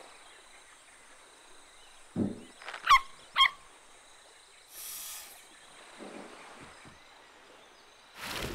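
Cartoon sound effects: a soft thump about two seconds in, then two short squeaky, honk-like animal calls in quick succession, the loudest sounds, then a brief hiss.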